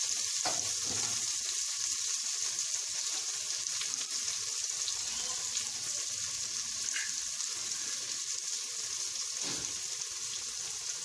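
Sliced onions frying in hot oil in a heavy-bottomed pan, a steady sizzle with occasional faint scrapes of stirring.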